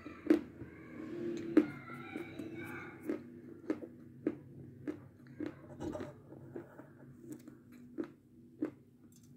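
Close-up chewing of a lump of Sumskoy chalk: dry crunches about every half second, thicker in the first few seconds, then stopping near the end.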